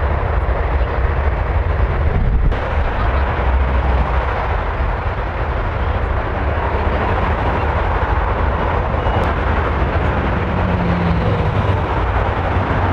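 Airbus A380 airliner's four jet engines running as it rolls along the runway after touchdown: a loud, steady, deep rumble under a jet hiss.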